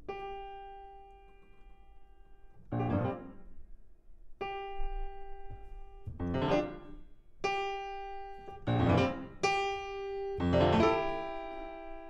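Grand piano: a single mid-range note is struck and left to ring, then answered by a loud, dense low chord. This happens four times, each return coming sooner than the last.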